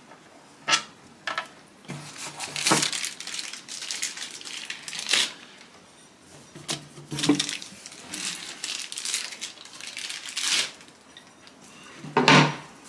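Handling noises of flat-pack furniture assembly: irregular rustling, small clicks and wooden knocks as a pine drawer, a plastic bag of screws and a metal handle are handled, with a louder knock near the end.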